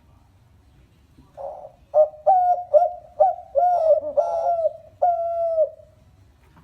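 Pet dove cooing: a soft note about a second and a half in, then a quick run of short coos, and one longer drawn-out coo near the end.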